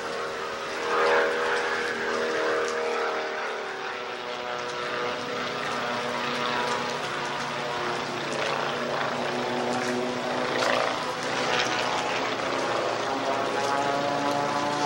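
Several small Formula V racing planes, propeller-driven by Volkswagen-based engines, drone low past at full throttle, overlapping engine notes dropping in pitch as each one goes by. The loudest pass is about a second in, with two more close passes later on.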